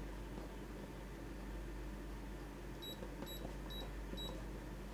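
Blaupunkt Q3200 alarm remote keypad beeping as a code is keyed in: four short, high, identical beeps about half a second apart, starting about three seconds in. One beep per key press.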